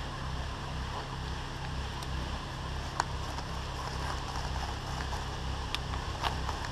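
Steady low rumble of wind and movement noise on the camera's microphone, with a few short sharp clicks, one about three seconds in and two near the end.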